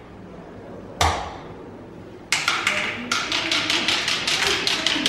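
A coin dropped into a zigzag-track coin donation box: one knock as it goes in about a second in, then, from a little past two seconds, a fast run of clicks, about five a second, as it rolls and rattles down the winding metal channel.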